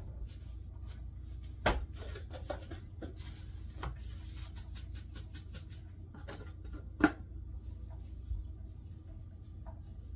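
A kitchen cabinet and a salt container being handled: scattered knocks and clicks, a sharp click about seven seconds in and a louder knock just before two seconds, over a steady low hum.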